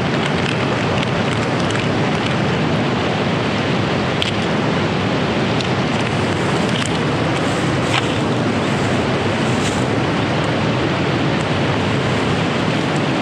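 Steady rushing of a fast-flowing river, mixed with wind buffeting the microphone, with a few faint ticks.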